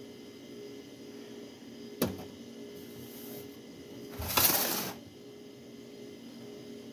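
A drinking glass set down on a metal table with a sharp knock, then about two seconds later a plate of bread set down on the same table with a louder, short clattering scrape.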